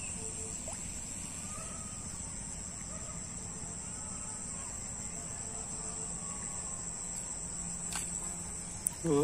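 Outdoor rural wetland ambience: a steady high-pitched drone of insects, with a few faint short calls in the background.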